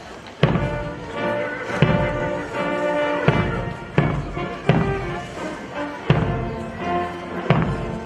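A brass band playing a march outdoors, its wind tune carried over heavy drum beats that come about once a second.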